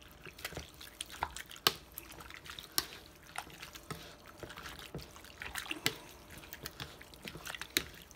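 A plastic spoon stirring shrimp ceviche in its lime juice: wet sloshing and squishing, with irregular sharp clicks of the spoon against the bowl, several a second.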